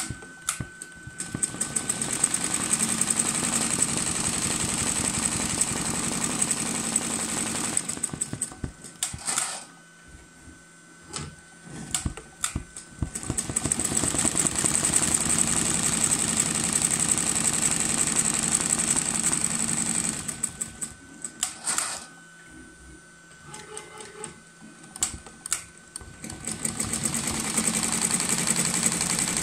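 Tajima Neo 12-needle embroidery machine stitching at speed, a fast, steady rattle. It stops twice for several seconds, with scattered clicks and knocks, before stitching resumes.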